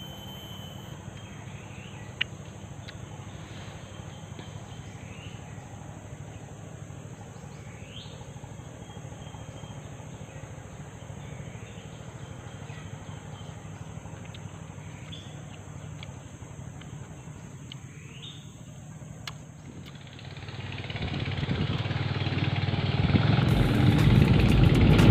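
Forest ambience: a steady high insect drone with short rising bird chirps every second or two, and a single sharp click about two seconds in. About twenty seconds in, a motorcycle engine comes up and grows louder, taking over near the end.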